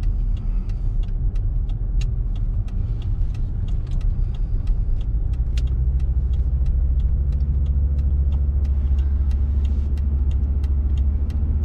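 Car running and driving with a trailer in tow: a steady low engine and road rumble that grows fuller about halfway through, with frequent light clicks and rattles over it.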